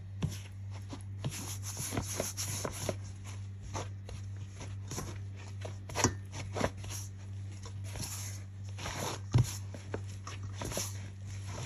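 Hand mixing and kneading flour dough in a steel bowl: soft, irregular squelches and knocks against the bowl, over a steady low hum. One sharper knock comes near the end.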